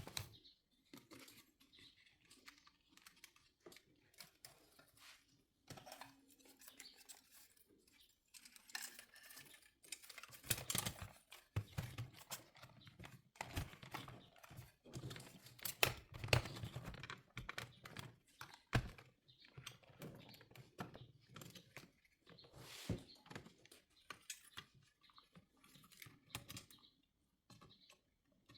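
Hands working on plastic car head-unit and dash parts: irregular light clicks, taps and scrapes, with short pauses between them.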